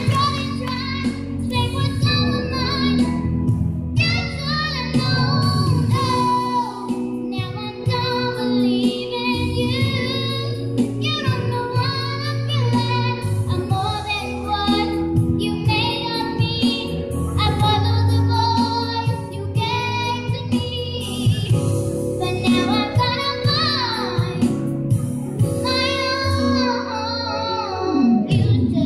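A young girl singing a song into a microphone, amplified through PA speakers, over instrumental backing music.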